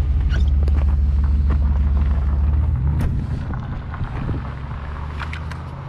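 A van's engine running close by, a steady low hum that shifts pitch about three seconds in and then slowly fades, with scattered short clicks.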